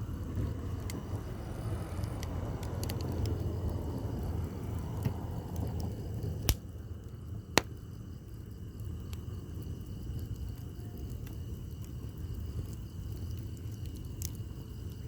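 Firewood burning in a campfire: scattered crackles and pops over a low steady rustle of the flames, with two sharp, loud pops about a second apart near the middle.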